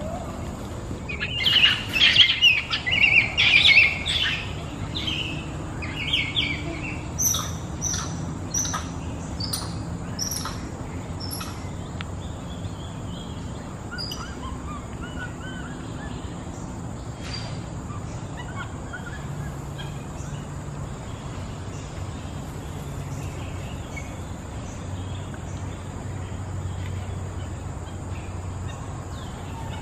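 Birds calling: a burst of loud chattering calls about a second or two in, then a run of short high whistled notes, thinning to scattered faint chirps.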